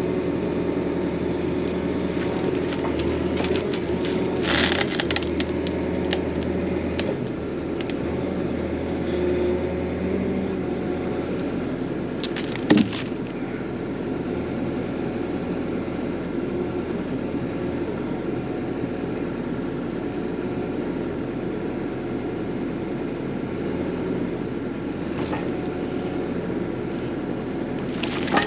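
Excavator engine running steadily, with sharp cracks of wood: a cluster about four and a half seconds in, one loud knock a little under halfway, and another near the end.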